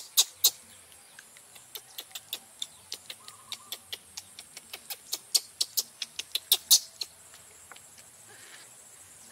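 An irregular run of sharp clicks, a few a second, that stops about seven seconds in, over a faint steady high hiss.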